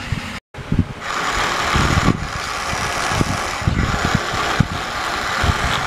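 Small battery-powered electric motor and plastic gearbox of a wired-remote toy wheel loader whirring steadily as it is run from the handset, with irregular knocks and rattles. The whir starts about a second in.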